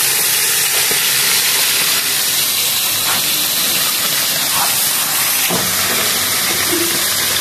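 Tilapia frying in hot oil in a pan: a loud, steady sizzle, with a few faint knocks near the middle.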